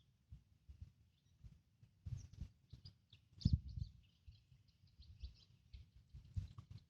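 Faint birds chirping, over irregular low thumps and rumbles, the loudest about three and a half seconds in.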